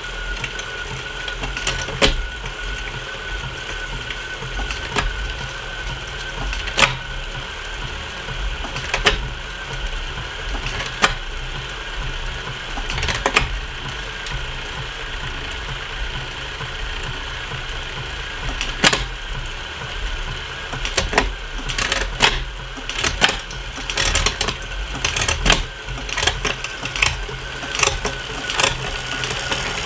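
Bicycle drivetrain spinning on a Wahoo Kickr Core trainer with a steady whine, as a SRAM AXS electronic rear derailleur shifts across a Shimano Ultegra R8100 12-speed cassette. Sharp clicks every few seconds, coming thicker in the last third, from the shifts and from the chain clicking on cogs of the Shimano cassette that don't line up properly with the SRAM drivetrain.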